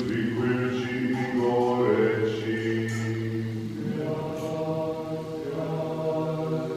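Orthodox liturgical chant: voices chanting in long held notes, shifting pitch about two and four seconds in.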